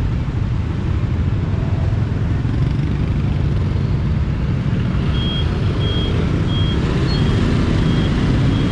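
Motorbike traffic idling at a red light, with a steady low engine rumble. From about halfway in, a short high electronic beep repeats about every three-quarters of a second.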